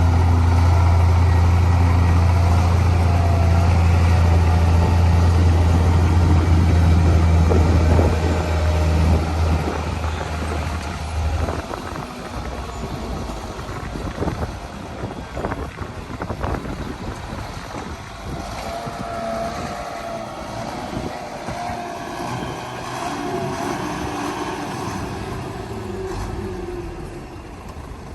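Heavy diesel earthmoving machinery running: a loud, deep engine drone that drops away about a dozen seconds in, then quieter running with a wavering whine and scattered knocks.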